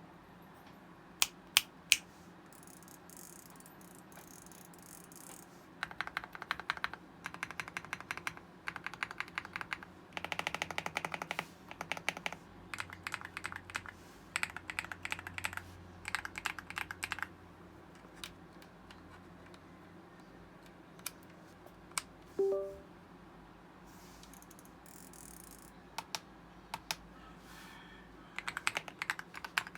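Aula S75 Pro mechanical keyboard with Star Vector switches and PBT XDA keycaps being typed on: runs of fast keystrokes with pauses and scattered single presses, a few louder single key hits near the start. A short tonal blip sounds about two-thirds of the way through.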